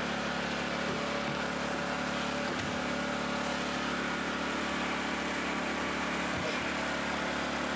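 Steady rush of hurricane wind and rain beating around a screened porch, with a low steady hum underneath.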